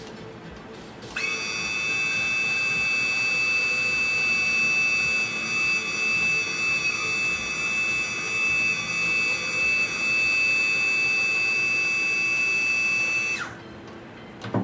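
BMW R1150RT's electric ABS brake pump running while the front brake lever is held: a steady high-pitched whine that starts about a second in and cuts off sharply near the end. The pump is pushing brake fluid through the system to flush the air out of the crossover line to the other front caliper.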